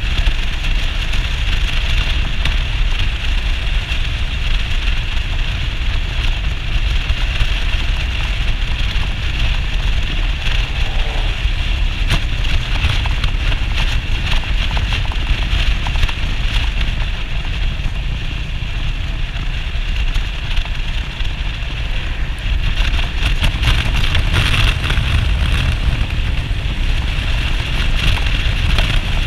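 Yamaha SR400 single-cylinder motorcycle being ridden: steady engine and road noise under wind buffeting the microphone.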